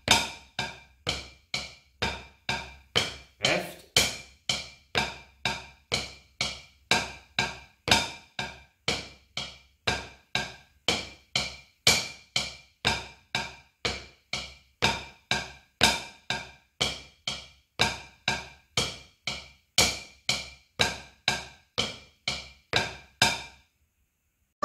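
Drumsticks striking a rubber practice pad in a steady, even beat of about two strokes a second, in a rudiment exercise where the leading hand alternates from measure to measure. The strokes stop near the end.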